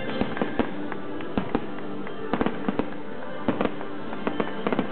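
Aerial fireworks bursting in an irregular string of sharp bangs, a couple of dozen in under five seconds, several clustering close together near the middle and end. Music plays steadily underneath.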